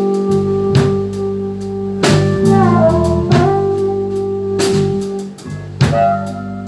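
Blues band playing live, instrumental between sung lines: sustained guitar and bass over a drum kit, with cymbal crashes roughly every second and a quarter and a note bending down about two and a half seconds in.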